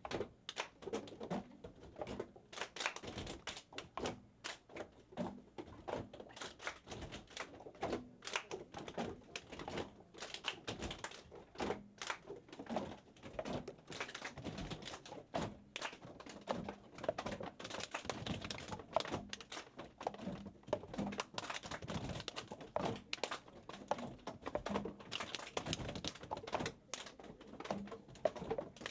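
Busy lab bench work: a steady, irregular patter of small clicks, taps and knocks of plastic labware, pipettes, tip boxes and tubes, handled by several people at once.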